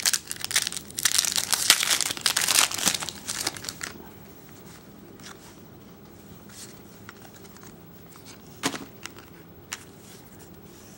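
A trading-card pack wrapper crinkling and tearing for about four seconds. After that come a few faint rustles and one short crackle near the end.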